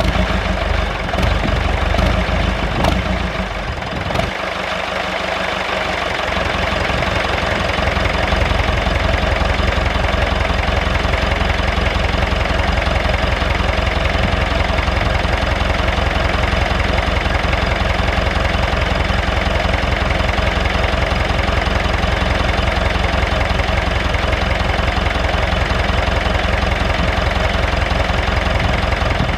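David Brown 996 tractor's four-cylinder diesel engine idling steadily, running again after sitting about ten years. Wind rumbles on the microphone for the first few seconds.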